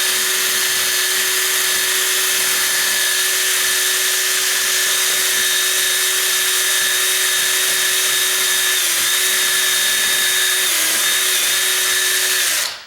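Electric drill running steadily with a 1/8-inch bit, its side threads reaming wood out of a door jamb's latch hole. The motor's pitch dips briefly twice late on as the bit loads, and it cuts off just before the end.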